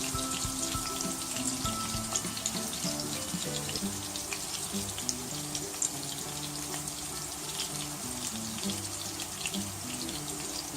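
Galouti kebab patties sizzling in hot oil in a frying pan, a steady hiss with fine crackling pops. Background music with steady sustained notes plays underneath.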